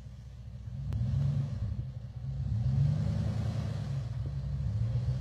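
Dodge Ram pickup's engine revving as the truck pulls through deep dirt ruts under load. The revs rise about a second in, ease off briefly, then climb again around three seconds and near the end.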